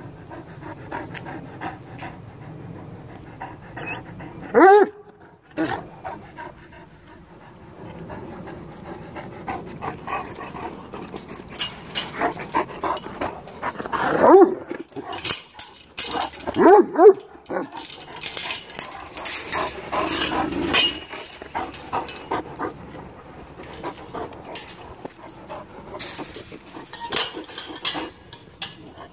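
Big dogs vocalising at a chain-link gate: a loud bark about five seconds in and more barks around the middle, with panting between. Metal clinks and rattles come from the gate's clip latch and chain-link as it is unfastened and opened.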